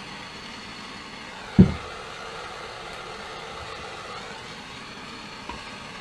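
One short, loud knock about a second and a half in, over a steady background hum, with a faint click near the end.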